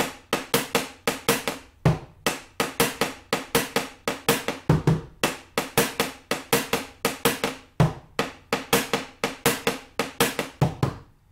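Bombo drum played with two wooden sticks in the cumbia tambora rhythm: a steady run of sharp clicks on the drum's wooden shell, about four a second, with a deep stroke on the drumhead about every three seconds, doubled once near the middle.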